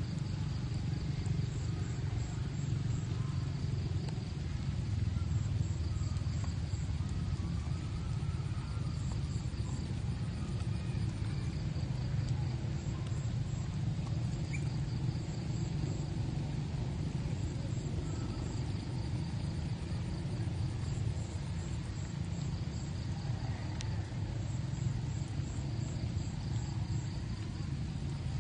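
Steady low rumble with faint insects chirping high above it in short rapid runs every few seconds.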